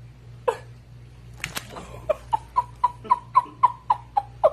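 Screech owl giving one short call, then a rapid run of about a dozen short clipped notes, roughly four a second, as its back is scratched.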